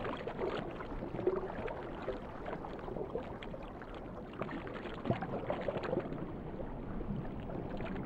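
Underwater ambience: a soft, steady wash of water with faint gurgles.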